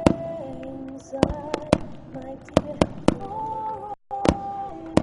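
Fireworks bursting in sharp bangs, about eight in a few seconds, over loudspeaker music with held melodic notes. The sound drops out for an instant about four seconds in.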